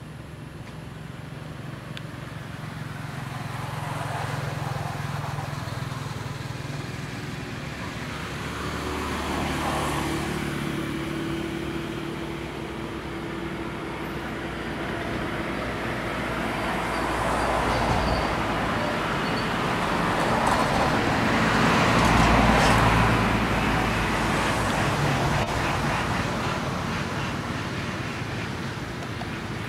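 Road traffic passing: engine and tyre noise that swells and fades as vehicles go by, loudest about two-thirds of the way through.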